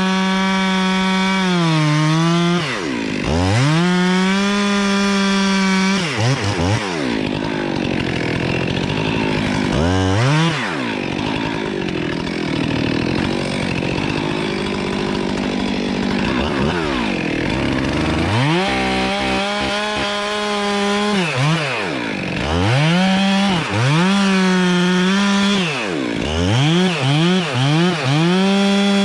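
Chainsaw running at high revs and dropping back toward idle several times, with a stretch in the middle where it runs lower and rougher while cutting into wood. Near the end the throttle is blipped in a quick run of revs.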